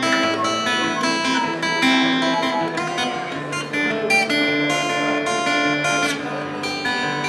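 Acoustic guitar playing strummed chords with ringing, changing notes.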